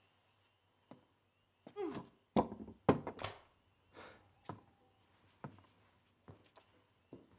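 A door swinging shut with a few loud thunks, followed by slow, spaced footsteps on a wooden floor.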